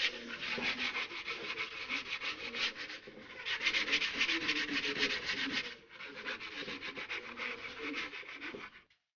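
80-grit sandpaper rubbed by hand in quick back-and-forth strokes around the top edge of a PVC pipe: the coarse first sanding pass. A fast, even scratching in three runs, with short breaks about three and six seconds in, stopping just before the end.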